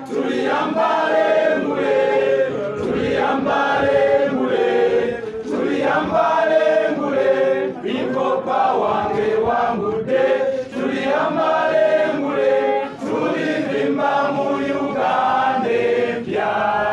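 A group of men and women singing a song together in unison, phrase after phrase with short breaks for breath.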